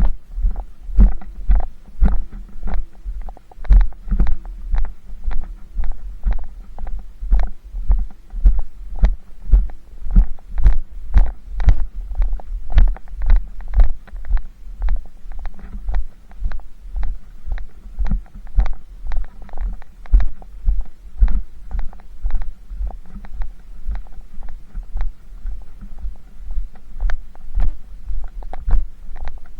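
Dull low thumps in a steady, fast rhythm, about two or three a second, each with a short click.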